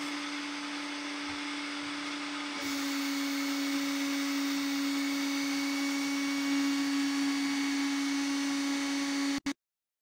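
Straw-bale infill machine running with a steady mechanical hum on one constant tone. It gets louder and brighter about two and a half seconds in and cuts off suddenly near the end.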